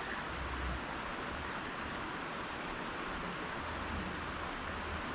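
Steady rush of water in a shallow creek, with a few low thumps.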